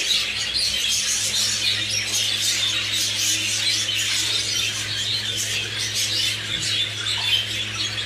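Budgerigars chattering and warbling: a dense, continuous stream of quick chirps and squawks. A steady low hum runs underneath.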